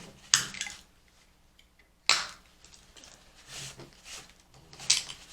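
Close-up sipping and swallowing of a drink: a few separate wet mouth sounds, the sharpest about a third of a second and two seconds in.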